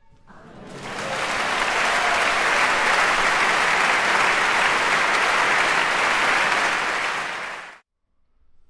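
Concert-hall applause, audience and orchestra clapping, swelling up over the first second as the last violin note dies away, then holding steady. It cuts off suddenly near the end.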